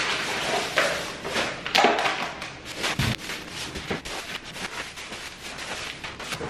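Thin plastic grocery bags rustling and crinkling as they are lifted, set down on a countertop and pulled open, with a dull thump about three seconds in as a loaded bag lands.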